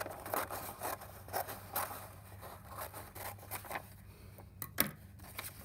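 Scissors cutting through folded paper in a run of short snips, trimming the extra strip off a diagonally folded sheet, with paper rustling as it is handled. A couple of sharper clicks come near the end.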